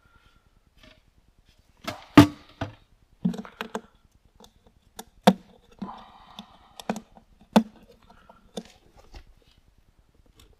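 Irregular knocks and clicks, about a dozen, from hard parts or tools being handled during hands-on work, the loudest about two seconds in and several with a short low ring.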